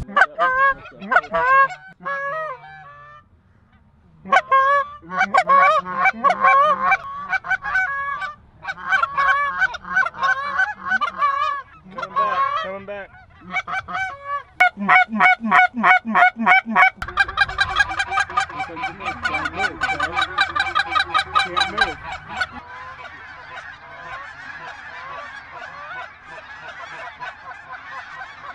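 Geese honking: a hand-held goose call blown in quick honks and clucks at the start, then a flock of snow geese calling. The calls come thick and fast, and near the end they blend into a dense clamour of many birds.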